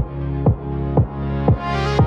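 Tropical house music: a steady four-on-the-floor kick drum, about two beats a second, under sustained synth chords, with a rising sweep building near the end.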